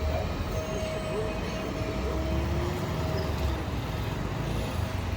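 Busy street traffic noise: a steady low hum of passing vehicles, with a thin steady tone over it for the first few seconds.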